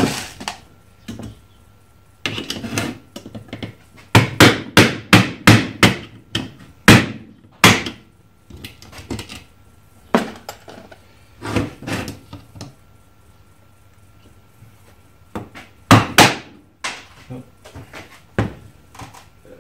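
Claw hammer striking a screwdriver to knock surface-mount components such as ceramic capacitors off a circuit board: sharp tapping blows, a quick run of about ten in the middle, then a few single and paired strikes.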